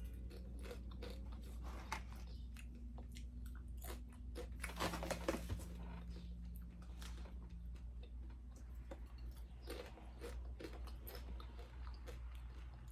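Someone biting into and chewing crunchy chocolate-covered coconut chips close to the microphone: many small crisp crunches, with a louder flurry about five seconds in.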